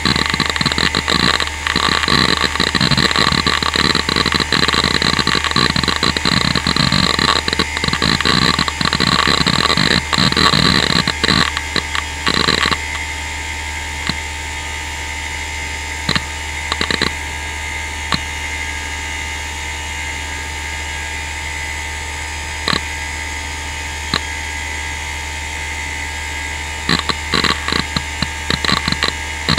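Western Digital Caviar 31200 4500 rpm IDE hard drive under disk activity. For about the first dozen seconds its heads seek in a rapid stream of clicks over the steady spindle whine. Then the seeking dies down to the whine with only an occasional click, and a short flurry of seeks comes back near the end.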